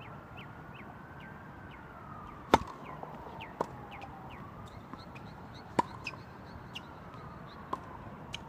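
Tennis ball struck by rackets and bouncing on a hard court during a rally: a few sharp pops, the loudest about two and a half seconds in and another near six seconds, with fainter ones between and near the end.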